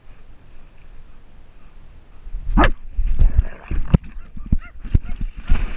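A dog close to a camera strapped to its back: quiet at first, then a loud sharp sound about two and a half seconds in, a run of short sharp sounds, and brief high whines near the end.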